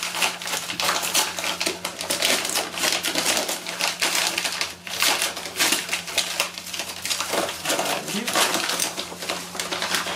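A padded mailer envelope being torn and pulled open by hand, its paper and plastic crackling and rustling in a dense run of small clicks.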